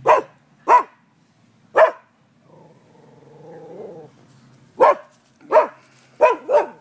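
A dog barking on the other side of a wooden fence: three sharp barks in the first two seconds, a pause, then four more in quick succession near the end.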